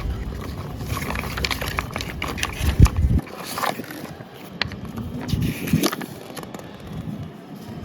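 Paper envelope and printed manual being handled and opened, with irregular rustling and crinkling and one sharp thump about three seconds in.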